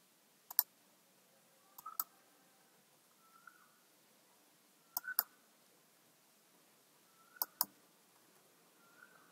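A few computer mouse clicks and keyboard keystrokes, scattered and some in quick pairs.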